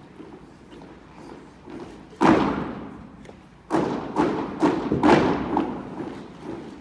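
A squad's boots stamping in unison on a wooden drill hall floor: one sharp stamp about two seconds in, then marching steps at about two a second from near four seconds in, each echoing through the large hall.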